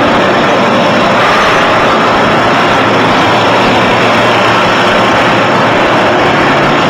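Gray 5-inch CNC horizontal floor-type boring machine running under power: a loud, steady mechanical running noise with a few faint steady tones and no change in level.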